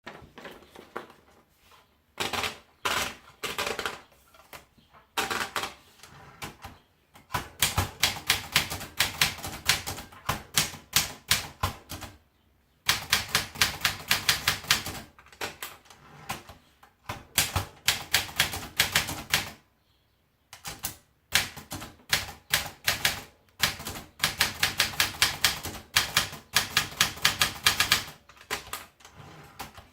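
AEG Olympia Traveller portable manual typewriter being typed on: runs of rapid key strikes, several a second, broken by short pauses about 2, 5, 12 and 20 seconds in.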